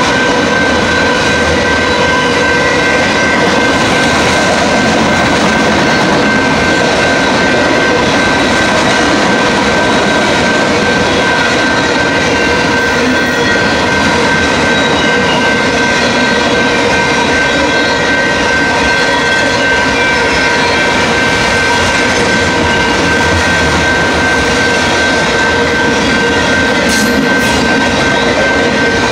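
Freight train of autorack cars passing close at speed: a loud, steady rush of wheels on rail, with steady high tones running through it.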